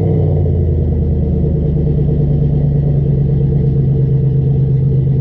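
Pickup truck engine idling steadily just after starting, an even, unchanging running note.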